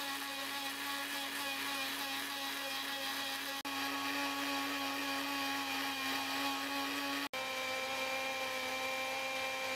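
Electric countertop blender motor running steadily, emulsifying eggs and oil into mayonnaise: a steady whine with two very brief breaks, its pitch shifting slightly after the second one.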